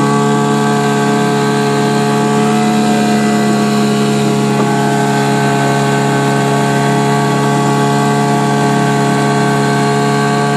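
1964 Johnson 3 hp two-stroke outboard motor running at a steady speed, with a constant buzzing hum. It runs evenly on new ignition coils and a rebuilt carburetor.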